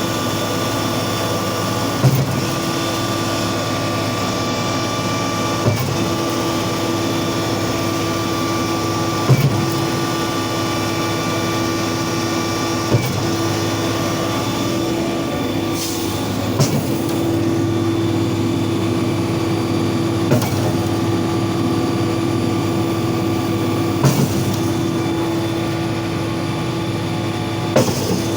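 Concrete pump running steadily under its engine, with a sharp clunk about every three and a half to four seconds as each pumping stroke changes over, eight times in all.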